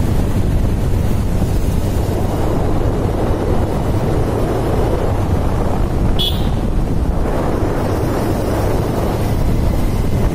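Wind rushing over the microphone with the steady road and engine noise of a vehicle on the move. A short high-pitched chirp comes about six seconds in.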